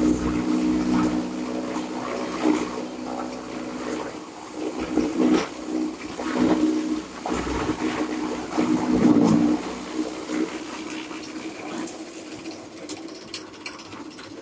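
Mini chaff cutter running with a steady hum while its blades chop green fodder stalks fed in by hand, giving repeated rushes of chopping noise. The rushes come thickest midway through, and the hum drops lower after that.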